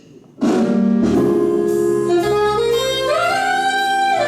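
Jazz music starts about half a second in: a saxophone melody climbing in steps over a sustained chord to a held high note, which breaks off just before the end.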